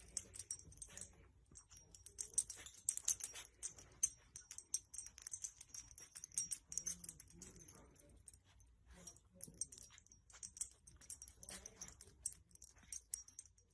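A dog moving about: faint, irregular quick clicks and scratchy rustling.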